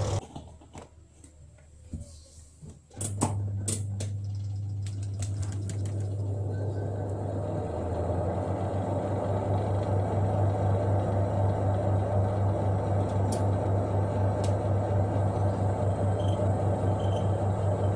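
Twin-tub washing machine spin dryer starting up after a few clicks about three seconds in, then spinning with a steady low hum and no squeak, its shaft and spin tub now bolted tight together.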